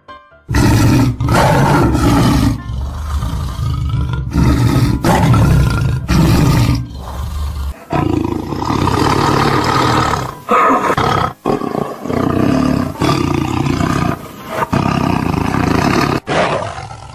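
Tiger roaring, a run of loud calls starting about half a second in and spliced together with sudden cuts between them.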